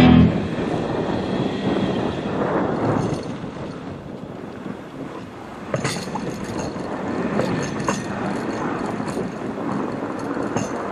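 A 2004 Ford Explorer pushing snow with a SnowSport HD utility plow: the vehicle running under a noisy rush of blade and snow. It opens with a brief loud thump, and a few sharp knocks and rattles come from about six seconds in.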